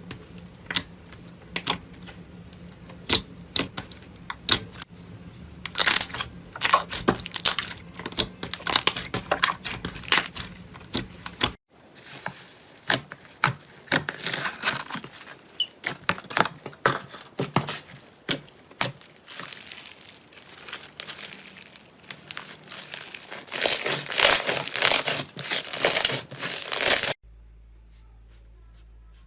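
Slime being squeezed and stretched by hand, with dense, irregular crackling and popping clicks. Near the end the crackling stops and only a low steady hum remains.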